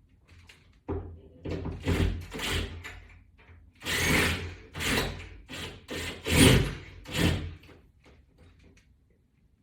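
A run of irregular knocks, scrapes and rattles from hand work on wall-mounting hardware and screws. It starts about a second in and dies away before the end.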